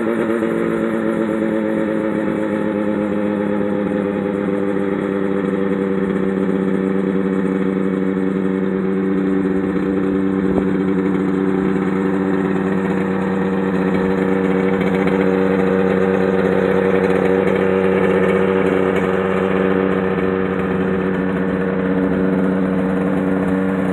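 Rotax 503 DCDI two-cylinder two-stroke engine of a Mosquito ultralight helicopter running steadily, its pitch easing slightly lower over the first few seconds and then holding.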